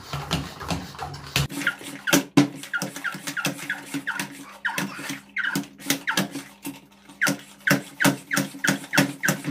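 The hand plunger pump of a Parkside garden pressure sprayer being worked up and down, a regular run of strokes, two or more a second, each giving a short falling squeak. The pumping builds air pressure inside the tank.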